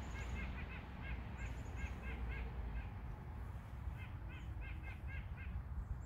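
Birds calling in two bouts of short, rapidly repeated calls, one in the first two seconds and one about four seconds in, over a steady low rumble.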